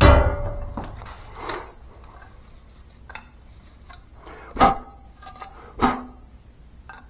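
Metal hand tools and pipe parts being handled: a loud clatter at the start, then a few sharp ringing metallic knocks, the two loudest about a second apart.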